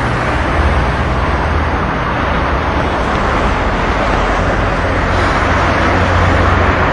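Steady street traffic noise from passing cars.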